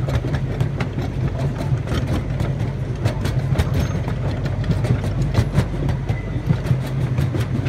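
Miniature park train heard from aboard an open passenger car: a steady low engine drone with frequent sharp clicks and clatter from the wheels on the track.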